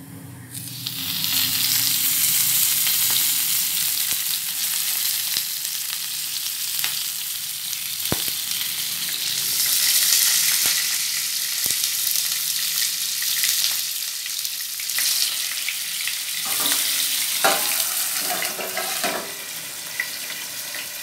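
Hot oil sizzling steadily as masala-stuffed tinda halves fry in a pan. The sizzle starts about a second in, once the oil has gone over them. A few sharp knocks, and a short clatter of utensils on the pan near the end.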